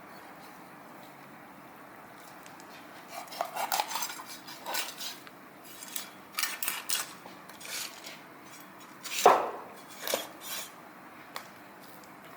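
Dishes and metal utensils clattering in the kitchen: a series of sharp knocks and clinks over several seconds, the loudest about nine seconds in.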